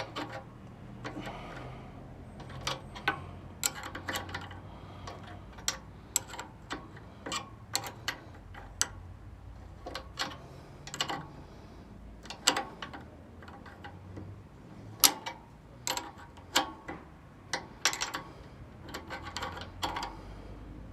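Sharp metallic clicks and taps from hand tools working bolts on a metal-cutting band saw as its blade adjustment is tightened down, coming irregularly at about one or two a second.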